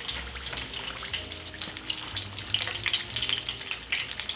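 Samosas deep-frying in a pan of hot oil, about 350 °F: the oil bubbles and crackles steadily around them with many fine, quick pops.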